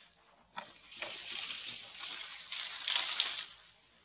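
Rustling and crackling in dry grass and leaf litter, after a single sharp click about half a second in. It builds for about two and a half seconds, is loudest near the end, then fades out.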